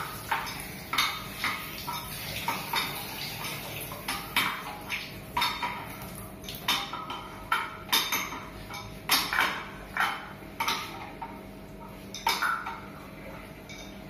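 Adjustable wrench clinking and tapping on the chrome fittings of a wall-mounted kitchen sink mixer while its connecting nuts are tightened, in irregular sharp metallic clicks about one or two a second.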